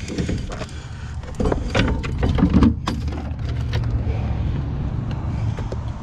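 Irregular metal knocks, clunks and scrapes as a heavy front strut assembly with its coil spring is wrestled out of a pickup's wheel well, thickest in the middle, over a steady low rumble.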